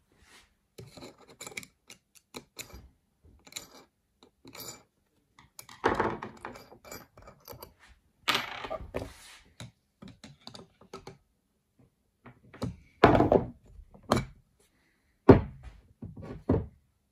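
A brass thermostatic cartridge being unscrewed by hand and pulled out of a brass recessed shower valve body: light metallic clicks and handling noise, broken by several dull thunks.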